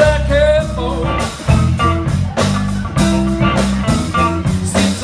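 Live electric blues band playing: electric guitars, bass guitar and drums under a harmonica solo with bending, wavering notes.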